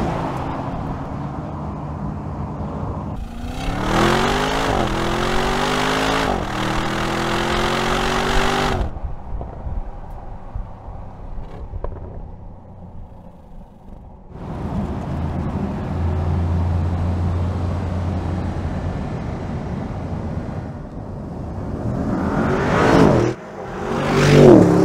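Audi RS Q8's 4.0-litre twin-turbo V8 accelerating hard: the engine note climbs, drops at an upshift and climbs again. A spell of steady road and engine noise follows. Near the end the SUV rushes past, its pitch falling as it goes by.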